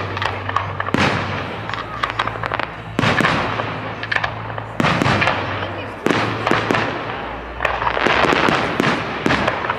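Fireworks display: a string of booms about every one to two seconds, each trailing off, then a burst of quick crackling near the end.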